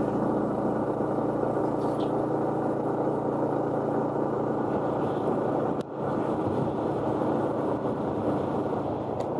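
Yamaha Exciter 150's single-cylinder four-stroke engine running steadily as the motorbike is ridden along the road. The engine sound dips briefly about six seconds in.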